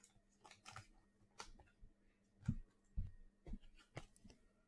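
Sports trading cards being handled: faint, scattered clicks and soft taps, with a few light low taps in the middle.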